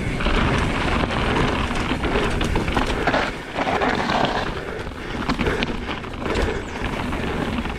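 Mountain bike descending at speed: tyres rumbling over rough ground, with the bike rattling and knocking throughout and wind noise on the microphone.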